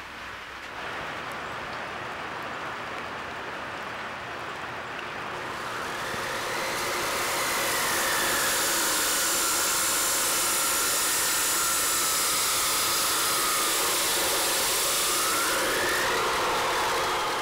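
Abrasive chop saw cutting steel tubing: a loud grinding hiss with a motor whine that dips as the blade bites and rises again near the end. Before it, for the first few seconds, only a quieter steady hiss.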